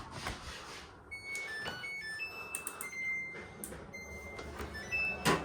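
Samsung washing machine control panel beeping: a string of short electronic tones at several different pitches, starting about a second in, with a few sharp clicks in between.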